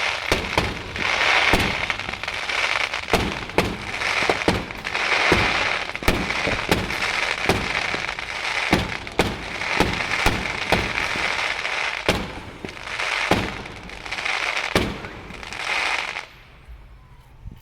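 Consumer fireworks going off in rapid succession: many sharp bangs, with swelling bursts of hiss between them. They stop suddenly near the end.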